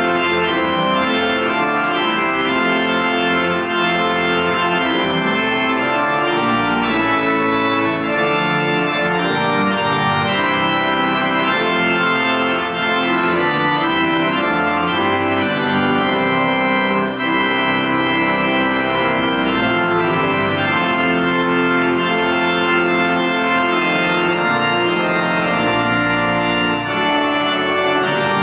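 Church organ playing loud, sustained chords that move from one to the next every second or so.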